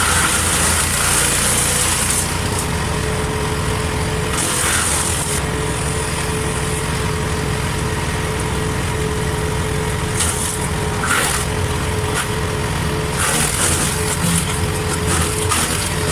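Engine-driven wood chipper running steadily, with several stretches of loud hissing crackle as branches are fed through and chipped.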